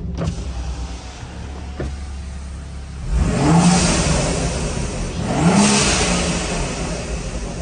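BMW N55 turbocharged straight-six of an F30 335i heard from inside the closed cabin, droning steadily, then rising in pitch twice, each rise followed by a loud rush of air of about a second from the Turbosmart vent-to-atmosphere blow-off valve venting boost.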